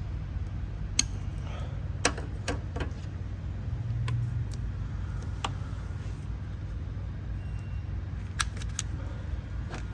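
Scattered sharp clicks and snips of hand tools cutting open a wire in a car's wiring harness to check for battery-acid corrosion, over a steady low hum.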